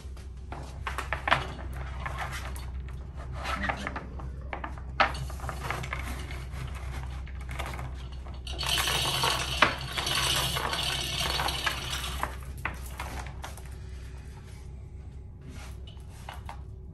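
Steel chain clinking and rattling as it is handled. A denser run of rattling comes about halfway through.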